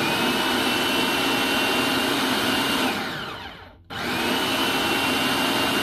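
Food processor motor pulsing twice, chopping butter and shortening into flour for pie dough: a loud, steady whine that winds down with a falling pitch about three seconds in, then starts up again.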